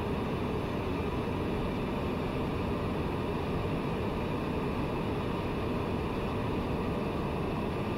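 Steady cabin noise of a TBM 900 in flight: its single Pratt & Whitney PT6A turboprop engine, propeller and rushing air make an even low rumble with faint steady high tones above it.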